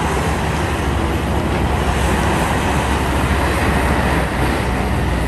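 Heavy diesel earthmoving machinery running steadily: a Cat 352F hydraulic excavator's engine at work loading a dump truck, a loud, even drone.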